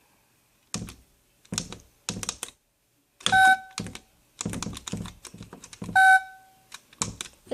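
Spy Gear toy door alarm being armed: its plastic buttons clicking as a code is tapped in, with two short electronic beeps about three seconds apart.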